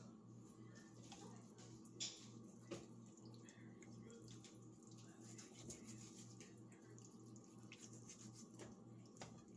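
Near silence: a faint steady low hum, with a couple of soft clicks about two seconds in as raw chicken pieces are handled in a frying pan.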